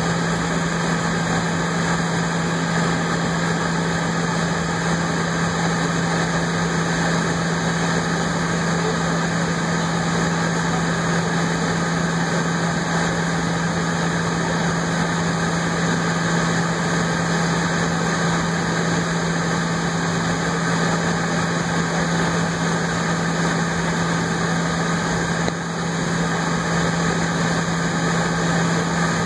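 Jet airliner engines running at taxi power, heard from inside the passenger cabin: a steady low drone over an even rushing hiss.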